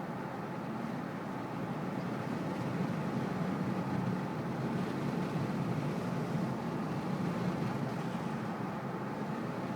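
Steady low rumbling noise, like a vehicle on the move, swelling slightly in the middle.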